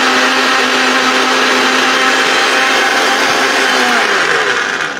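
1200-watt electric blender motor running steadily at speed with its juicer jar, blending cut fruit with water into juice. About four seconds in it is switched off and the motor winds down, its hum falling in pitch.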